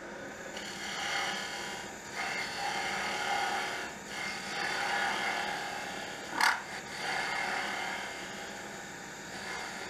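Round-nose scraper cutting the end of a wooden pen blank spinning on a lathe, bringing it down to the bushing: a steady scraping rasp that swells and eases with each pass. One short sharp knock about six and a half seconds in.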